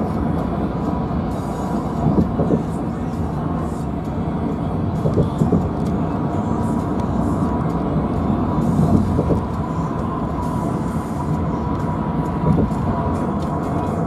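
Steady road and engine rumble inside a moving vehicle's cabin at highway speed, with a few brief louder bumps.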